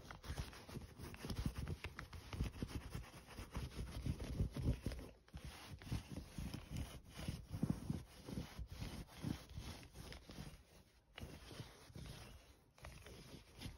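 Sticky lint roller rolled back and forth over plush fleece fabric: a rubbing, crackling rustle in irregular strokes, with a few short pauses.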